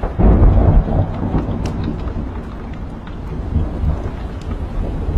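A roll of thunder over steady rain, loudest in the first second and then rumbling on more quietly. A few small crackles from a log fire in a fireplace.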